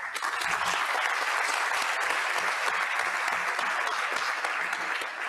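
Audience applauding: dense clapping that starts suddenly and eases a little near the end.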